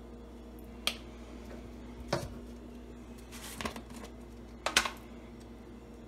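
Plastic kitchen containers handled on a wooden counter: a squeeze bottle closed and set down, and a container lid taken off. These come as four short clacks about a second apart, over a steady low hum.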